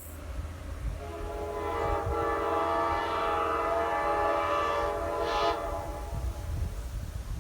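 A 1980s wide-font Nathan Airchime K5LA five-chime train horn sounding one long chord that starts about a second in and fades near the end, over a low rumble.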